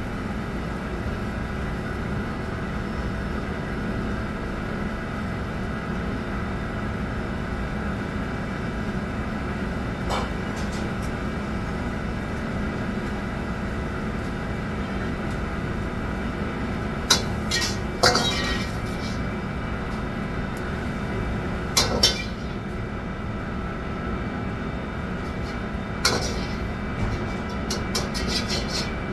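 Steady hum of kitchen equipment in a restaurant kitchen, with a few sharp clinks of dishes and utensils: one about a third of the way in, a pair a bit past halfway, another soon after, and a quick run of clinks near the end.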